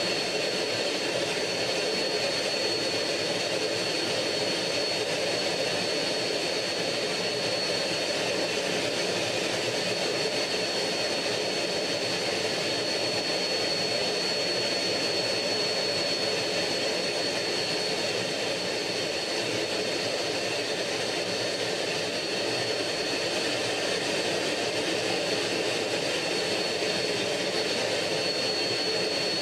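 MiG-15 turbojet engine running steadily in flight, heard from inside the cockpit: an even rush of engine and air noise with a constant high whine.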